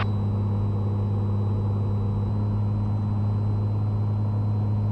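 Cessna 182T's six-cylinder engine and propeller droning steadily in the cabin, a constant low hum, at reduced power on final approach with flaps extended.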